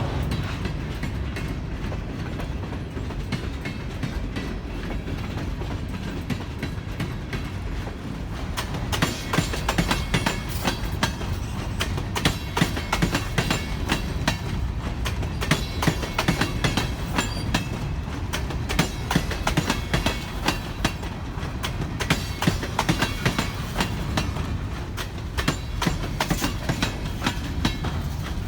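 Ballast train rolling past with a steady rumble and wheels clacking over the rail joints. The clacks get louder and more frequent from about nine seconds in.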